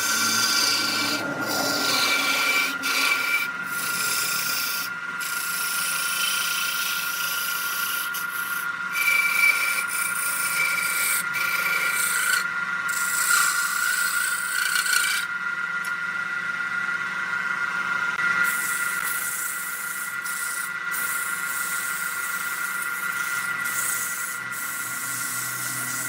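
Wood lathe turning a redwood piece while a tool scrapes against the spinning wood, a rasping hiss over the lathe's steady whine. The scraping hiss drops away for a few seconds past the middle, leaving the whine.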